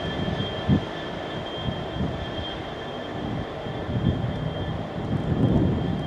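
Freight train running away into the distance: a steady low rumble with irregular low thumps, and a faint high steady tone fading out.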